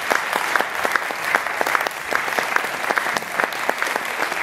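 Audience applauding steadily: a dense wash of many hands clapping, with single sharp claps standing out.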